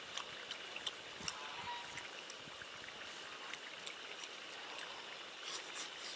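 People eating at a table: scattered light clicks of chopsticks against bowls and soft chewing sounds, over a steady background hiss.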